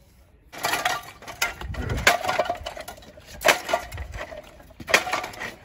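Scrap metal being gathered up and shifted, clanking and clattering in an irregular run of knocks with a metallic ring, the loudest about two, three and a half and five seconds in.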